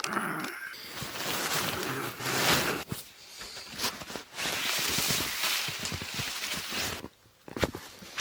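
Rustling of fabric and gear being handled in uneven stretches, with a few short knocks, as someone climbs out of a sleeping bag and bivvy sack; it drops away briefly about three seconds in and again near the end.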